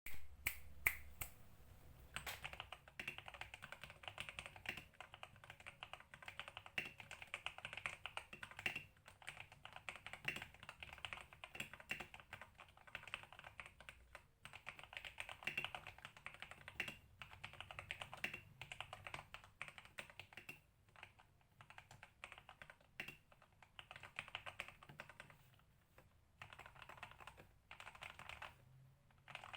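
Computer keyboard being typed on: rapid runs of key clicks with brief pauses between them, a few separate louder key presses at the start.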